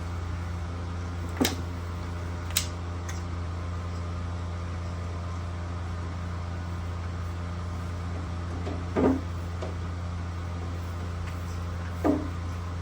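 Steady low mechanical hum, with two sharp clicks in the first three seconds and two short vocal sounds about three seconds apart near the end.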